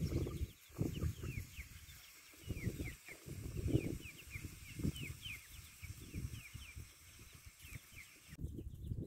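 Young chickens peeping: a string of short, high, falling peeps that stops shortly before the end. Under them runs an irregular low rumble.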